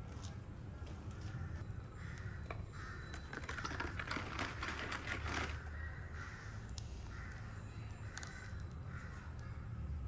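Crows cawing repeatedly, with the calls crowding together and loudest in the middle.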